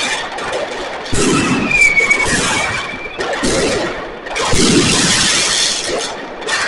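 A 50 mm consumer firework battery firing: a loud burst about a second in and two more about two seconds later, each followed by a second or so of crackling hiss. A short whistle that dips slightly in pitch sounds after the first burst.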